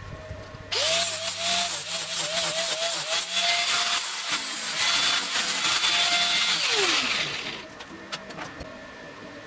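A handheld electric power tool spins up just under a second in and works against the job for about six seconds, its motor whine wavering with the load. It is then switched off and its whine falls away as it winds down.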